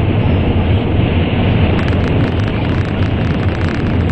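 Cabin noise of an N700 series Shinkansen running at speed through a tunnel: a loud, steady rumble with a rushing hiss above it. A faint fast crackle of ticks joins about halfway through.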